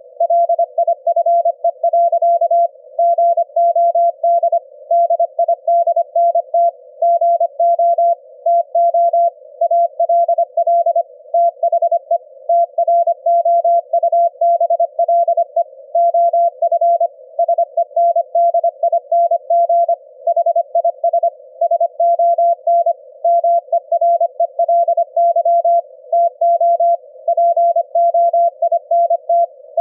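Morse code at 25 words per minute, heard as a keyed mid-pitched tone: a 25 Hz ELF-band CW signal demodulated to audio by the Quisk SDR receiver. Quick irregular dots and dashes run throughout, over a fainter steady hum that fills the gaps between them.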